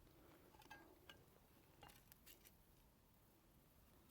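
Near silence, with a few faint, scattered ticks.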